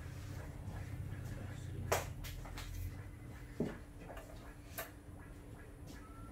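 Three sharp clicks and taps from hands working inside a plywood subwoofer cabinet, over a low steady rumble that fades out about halfway through.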